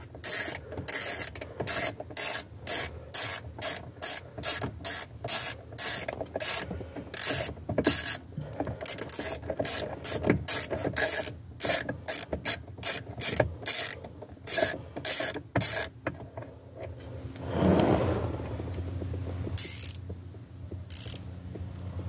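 A hand ratchet clicking in steady back-and-forth strokes, about two clicks a second, as it backs out a small screw from the underside of a steering column. The clicking stops about three-quarters of the way through, with a couple of last clicks near the end as the screw comes free.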